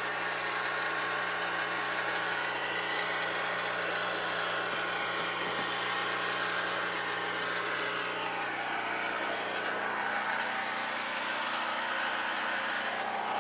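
Portable generator engine running steadily at an even speed, with a constant low hum.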